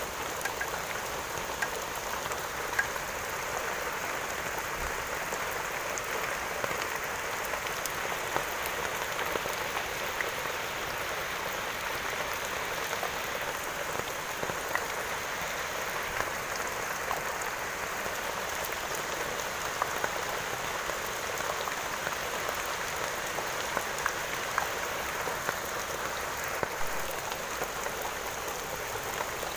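Steady rain falling: an even hiss of rain with many scattered, sharper drop hits.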